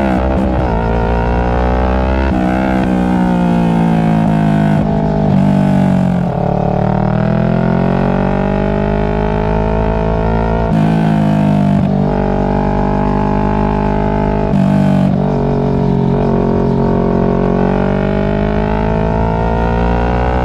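Kawasaki Ninja 650's parallel-twin engine running through a Two Brothers aftermarket exhaust while riding in traffic. The revs rise and fall steadily, with sudden pitch jumps several times as gears change.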